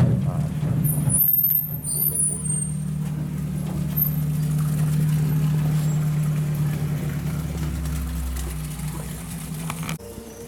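A motor vehicle engine running with a steady hum. There are brief high squeaks about a second in, and the sound cuts off abruptly near the end.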